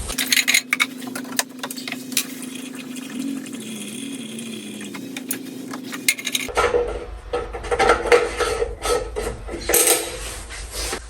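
Small metal parts and tools clinking and knocking against each other as they are handled. A steady low hum runs under the first six seconds or so, then stops.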